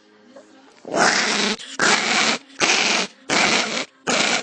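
An animal growling in a run of rough, evenly spaced growls, each about half a second long, starting about a second in.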